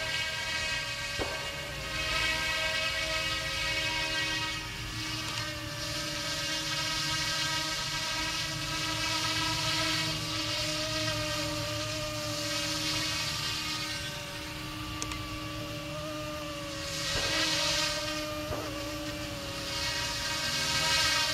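YXZNRC F09 Black Hawk RC helicopter in flight: the steady high whine of its electric motors, wavering slightly in pitch, with a rushing noise that swells several times as it flies overhead, loudest near the end.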